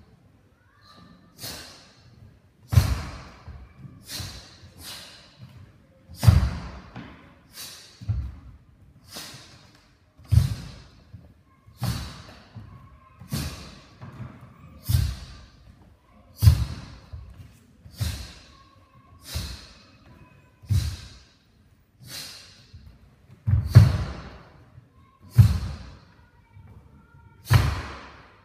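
A Taekwon-Do pattern performed barefoot: a sharp thud of feet on the wooden floor and the snap of the uniform with each technique, repeating about every one and a half seconds for around nineteen moves in a row.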